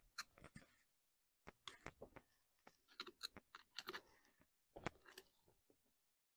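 Faint, irregular scraping and clicking of a steel screwdriver digging worn-out seal material from the bore of a bulldozer hydraulic cylinder's gland, with a short pause about a second in.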